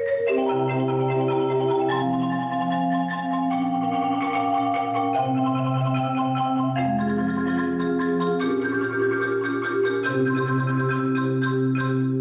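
Marimba ensemble of three playing sustained rolled notes, with chords and a melody over a low bass line that changes note every second or two.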